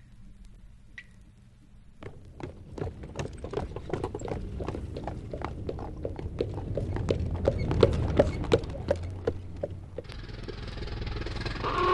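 Hard clip-clopping steps on pavement over a low rumble, growing louder and closer. About ten seconds in, street traffic noise rises, and a horn starts sounding at the very end.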